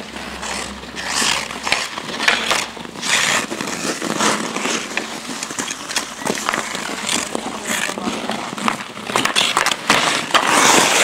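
Ice skate blades scraping and carving across rough outdoor ice in a string of irregular strokes, with the odd knock of hockey sticks on the ice. The scraping is loudest near the end.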